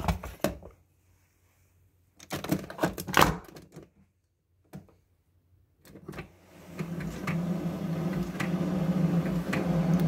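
Knocks and clatter as a mug is set down and the Keurig 2.0 brewer's lid handle is closed, then a click from the brew button about six seconds in. The brewer's pump then starts with a steady hum that grows louder toward the end: the brew cycle beginning.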